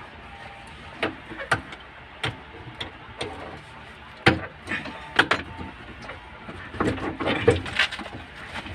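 Scattered metallic clicks and knocks of a wrench and fittings being worked loose at the fuel filter and fuel lines of a diesel engine. They come about once a second at first and become busier and louder clattering near the end.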